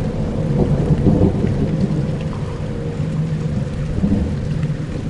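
Dark ambient soundscape: a deep rumbling drone with several held low tones under a faint hiss, swelling slightly about a second in.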